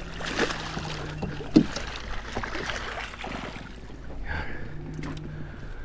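Water lapping against the hull of a small fishing skiff, with a few light knocks on the boat and a low steady hum that runs for about a second and a half, stops, then returns for about two seconds near the end.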